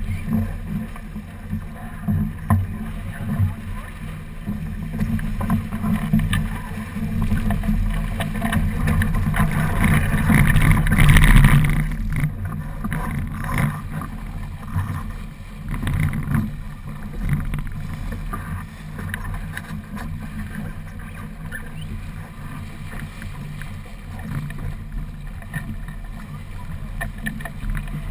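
Water rushing and splashing along the hull of a small racing keelboat under sail, with wind buffeting the microphone. The noise swells for a few seconds and drops off suddenly about twelve seconds in.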